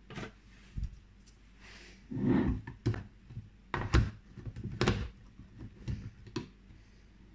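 Plastic clicks, knocks and a short scrape as a Sencor Nutri Blend personal blender's blade assembly is handled and screwed onto its cup. The loudest knock comes about four seconds in.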